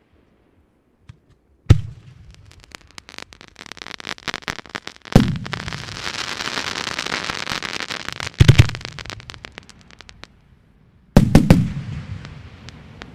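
Fireworks going off. Sharp bangs come about two, five and eight and a half seconds in, and two close together near eleven seconds. Each is followed by crackling, densest after the bang at five seconds.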